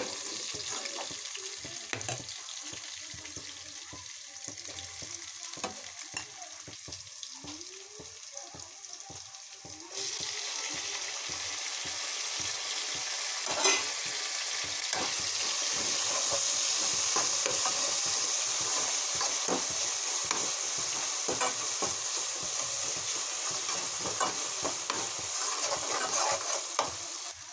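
Vegetables sizzling as they fry in oil in a metal kadai, with a spoon stirring and scraping against the pan in short clicks and taps. The sizzle jumps louder about ten seconds in and grows again a few seconds later, as chopped tomatoes go into the pan.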